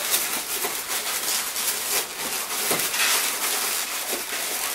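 Latex modelling balloons rubbing and squeaking against each other and the hands as the balloon elephant's twisted ears are shaped: a continuous scratchy rustle with a few faint short squeaks.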